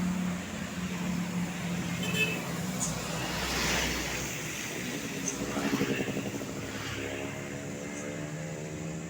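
A bus driving past on the road, with traffic noise. The rush of the passing vehicle comes a few seconds in, and after that the engine note climbs in pitch.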